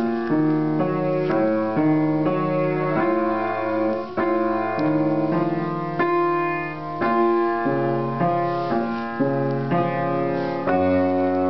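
Piano music: sustained notes and chords changing every second or so.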